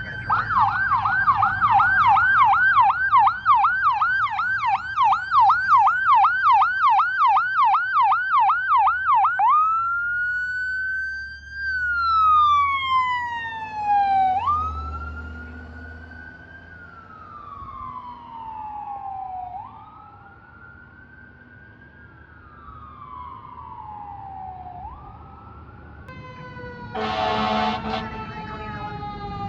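Fire-department emergency vehicle siren sounding a fast yelp, about three cycles a second, then switching about ten seconds in to a slow wail that rises and falls every few seconds and grows fainter as the unit moves away. Near the end a second siren starts and a horn blasts for about a second.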